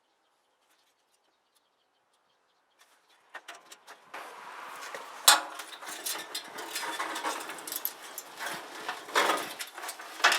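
Near silence, then from about three seconds in a run of metal clattering and clanking, with one sharp loud clank a little past five seconds in: the sheet-metal top of a central air conditioner's condenser unit being worked loose and handled.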